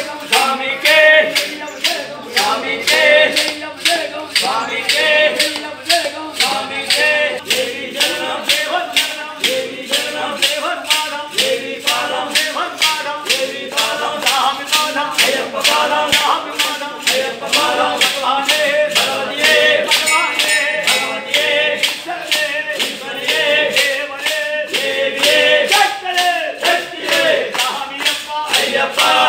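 Group singing of an Ayyappa devotional chant, with a sharp percussive beat struck steadily about twice a second.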